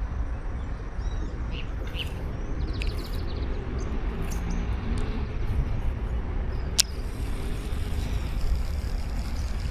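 Wind buffeting the microphone as a steady low rumble, with a few faint bird chirps in the first seconds and one sharp click about seven seconds in.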